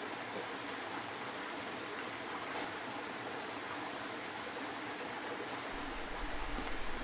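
Water flowing steadily, a constant even rush, with a low rumble coming in near the end.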